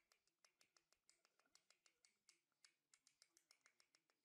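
Near silence with faint, rapid, irregular clicking, several clicks a second.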